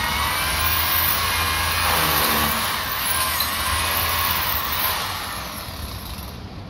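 A power drill running against the overhead window framing, its pitch shifting as it drives. It stops about five seconds in.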